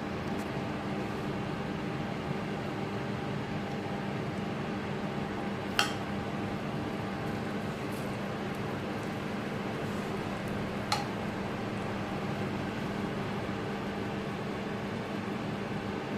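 A steady machine hum with a few faint held tones in it, broken twice by a short sharp click about five seconds apart.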